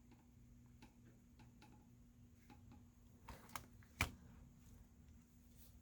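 Faint clicks and taps of small parts and tools being handled on a phone under repair, with one sharper click about four seconds in.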